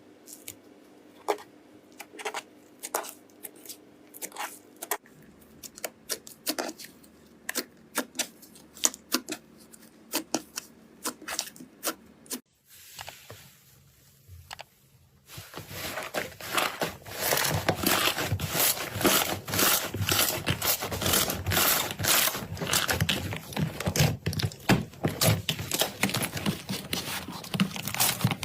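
Slime being squished and poked by hand, giving scattered sticky clicks and pops. After a short pause about halfway, it changes to a louder, dense run of rapid crackling.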